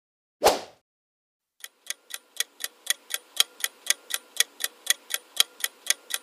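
A short whoosh transition sound effect about half a second in, then a countdown timer's clock ticking, evenly at about four ticks a second.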